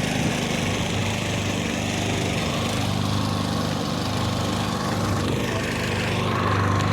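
Small Jet Turbo motor running steadily through a moped-style motorized-bicycle exhaust silencer, picking up slightly near the end.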